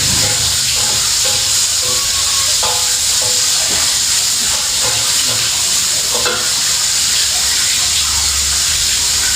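Food frying in hot oil in a pan: a steady sizzle, with a few short faint clicks.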